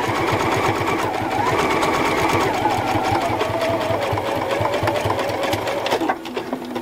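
Electric home sewing machine running a straight stitch: a fast, even needle rhythm under a motor whine that rises and falls with speed, slowing sharply about six seconds in.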